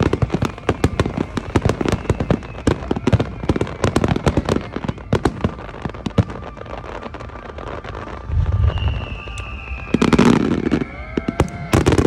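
Aerial fireworks in a rapid barrage of sharp bangs and crackles, followed by a few heavy booming shell bursts. A high whistle, slowly falling in pitch, runs through the last few seconds.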